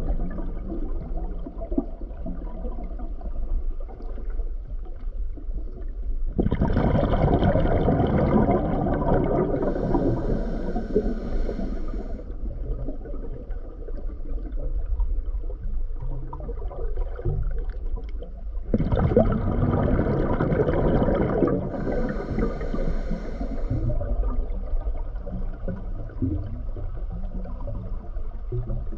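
Underwater noise picked up by a submerged camera: a steady low rumble of water, twice swelling into louder churning stretches of about five seconds each.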